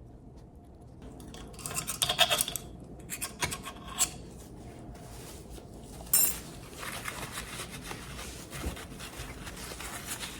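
Metal parts of a KitchenAid stand mixer's planetary gearbox being handled, scraping and clinking. The clatter is loudest about two seconds in, with one sharp clink about six seconds in and lighter scraping after it.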